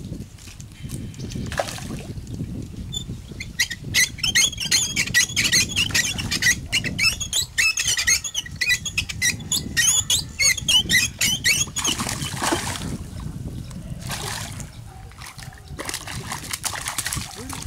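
A hooked fish splashing and thrashing at the surface of a pond as it is played toward the bank. For several seconds in the middle there is a loud, dense run of high chirps and clicks.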